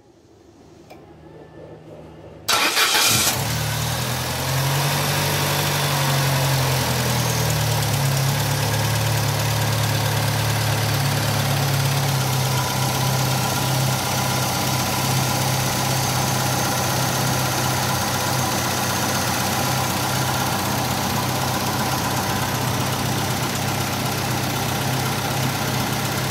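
Peugeot 306 engine, freshly rebuilt with a new head gasket, starting about two and a half seconds in and then idling. The idle wavers for a few seconds before settling to a steady run.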